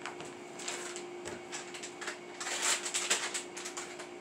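Yellow plastic utensil scraping cookie dough off a red silicone spatula: light scraping and clicking in two spells, about half a second in and again from about two and a half seconds.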